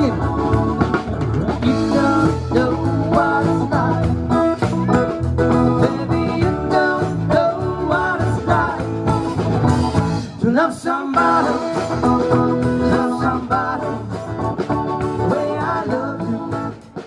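Live acoustic rock band playing: strummed acoustic guitar, drum kit and keyboard, with a sung lead vocal.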